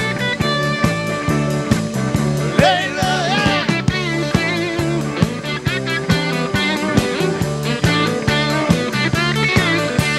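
Rock song instrumental passage: a guitar lead over bass and drums keeping a steady beat.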